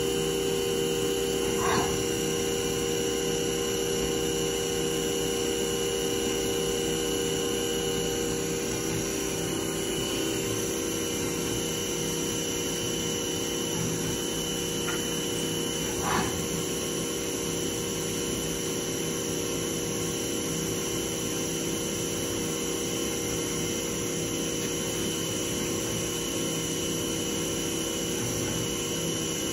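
Haas TM2 CNC mill running with its spindle turning at a steady speed: an even whine of several steady tones over a hum. A short chirp comes twice, about 2 seconds and 16 seconds in.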